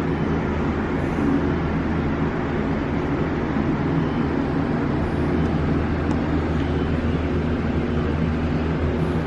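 Elevator cab running steadily, a constant hum and rumble with low droning tones.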